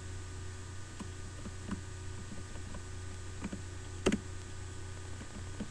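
A few scattered computer keyboard key presses over a steady low hum, with a sharper, louder key strike about four seconds in.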